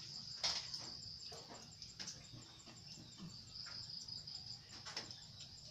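Crickets chirping in a steady high-pitched chorus, with a few faint clicks and knocks now and then.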